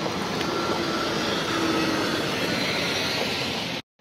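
Steady rushing noise of city street traffic, with a faint hum in it. It cuts off abruptly to silence just before the end.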